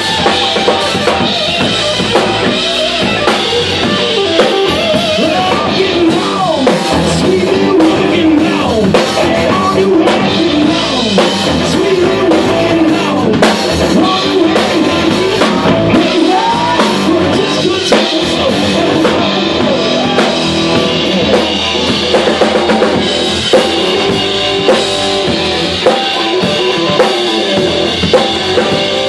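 Live rock band playing a driving rock-and-roll number: drum kit, electric bass and electric guitar at full volume, with a melody line bending in pitch over a steady beat.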